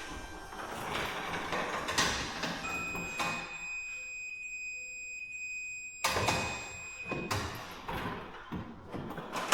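Garage door and roller hardware knocking and scraping as the old rollers are worked out of the track, with sharp knocks about two seconds in and again near six and seven seconds. A steady high tone holds for about four and a half seconds in the middle.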